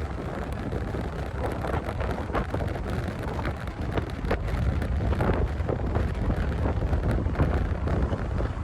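Strong wind buffeting the microphone: a steady low rumble with constant crackling gusts.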